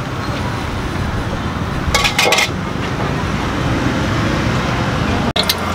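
Steady street traffic noise with a quick cluster of kitchenware clinks about two seconds in; the sound cuts out abruptly for an instant near the end.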